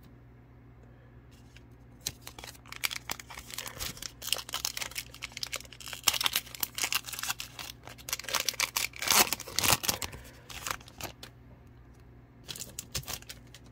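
A trading-card pack wrapper being torn open and crinkled by hand, crackling steadily from about two seconds in until about eleven seconds. A couple of short rustles follow near the end.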